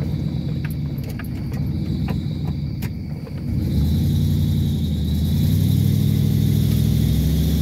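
1997 Ford F-150's 4.6-litre two-valve V8 running under load, heard from inside the cab, with scattered clicks and knocks. About three and a half seconds in the engine picks up to higher revs and holds there, with a thin high whine over it.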